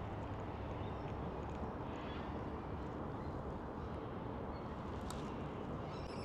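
Calm outdoor ambience: a steady low hiss with faint, scattered bird chirps, and one short bird call near the end.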